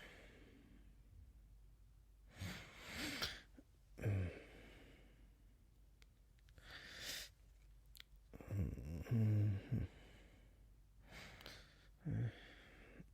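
A man waking from sleep: breathy sighs and exhalations broken by low groans, the longest groan about nine seconds in and a short grunt near the end.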